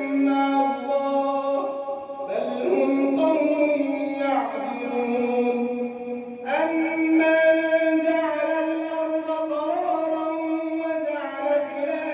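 Quran recitation in the tajweed style: a single voice chanting long, drawn-out melodic phrases, holding notes and sliding slowly between pitches.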